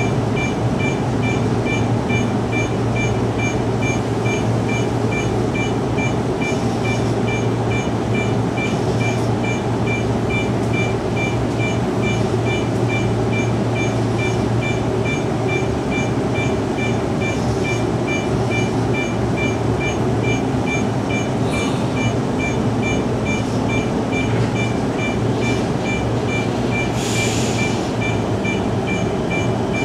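Electric commuter train heard from the cab, creeping along an underground station platform on its way to a stop at the terminus: a steady running hum and rumble. A fast, even, high-pitched beeping repeats throughout, and a short hiss comes near the end.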